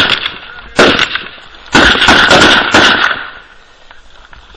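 Close small-arms gunfire: a single shot, another just under a second later, then a rapid string of shots lasting about a second and a half.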